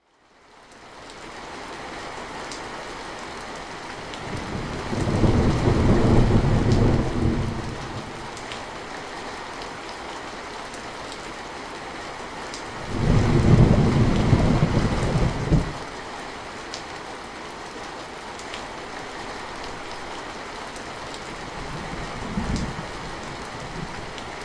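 Steady rain with thunder: three low rolls of thunder, two long ones about five and thirteen seconds in and a shorter one near the end. The rain fades in over the first couple of seconds.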